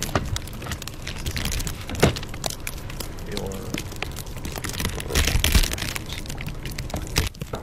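Rustling and crackling with many small clicks, a sharp knock about two seconds in, and a louder stretch of rustling around five seconds in.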